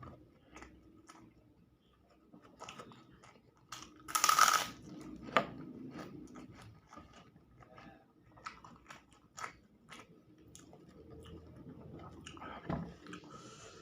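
A person chewing and biting food close to the microphone, with many small wet mouth clicks. About four seconds in there is a loud, brief crunch, followed by a sharper click about a second later.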